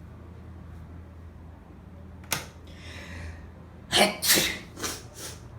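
A woman sneezing: a sharp catch of breath about two seconds in and a drawn-in breath, then a wet sneeze breaking in three quick loud bursts near the end.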